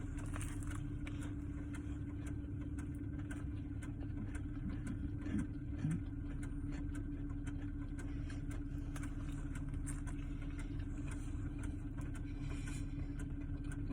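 Car engine idling, a steady low hum heard inside the cabin, with a couple of soft bumps about five and six seconds in.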